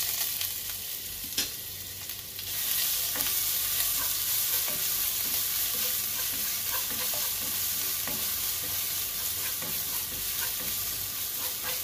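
Ginger-garlic paste and cumin seeds sizzling in hot oil in a non-stick pan while a spatula stirs them, with small scrapes and ticks. The sizzle grows louder about two and a half seconds in.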